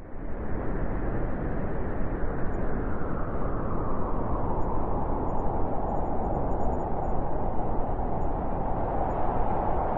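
Blizzard wind blowing in a steady, dense rush. It swells in from silence over the first half second, then holds level.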